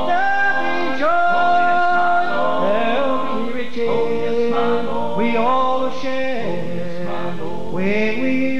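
Male gospel vocal group singing in close harmony, holding long drawn-out notes that slide from one pitch to the next.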